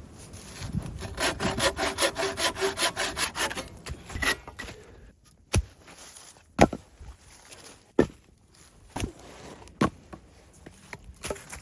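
A hand saw cutting dead firewood in quick back-and-forth strokes, about four or five a second, for a few seconds. After that come several sharp separate knocks or cracks, roughly a second apart, as the wood is handled or broken.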